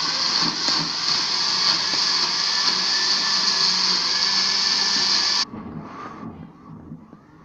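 Philips countertop blender running at speed, pureeing chopped pandan leaves with a little water, then switched off: it cuts out suddenly about five and a half seconds in.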